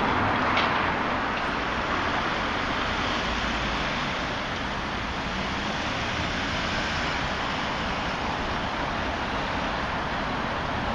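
Steady rush of passing road traffic, with a faint clatter just under a second in.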